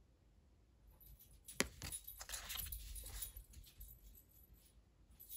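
Oracle cards being handled: a sharp click about a second and a half in, then a couple of seconds of rustling and sliding as one card is taken away and the next held up.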